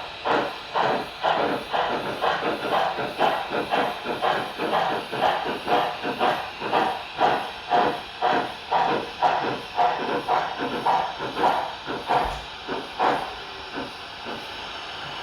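Digital steam sound from an HO scale articulated steam locomotive's LokSound 5 decoder through its speaker: exhaust chuffs about two a second that die away near the end, leaving a steady hiss.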